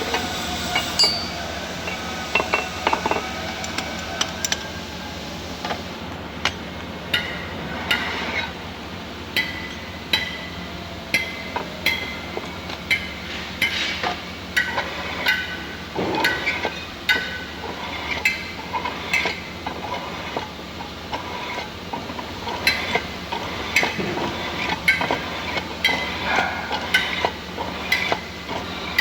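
Metal diff plate being machined: a machine runs steadily under a long series of sharp ringing metallic clinks, about one a second.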